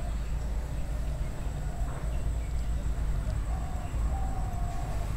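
Birds calling outside: short, repeated, level-pitched calls about once a second over a steady low rumble.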